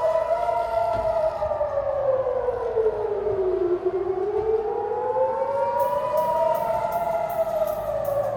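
Civil-defence air-raid siren wailing, its pitch sliding slowly down, back up and down again: an alert warning of an incoming projectile.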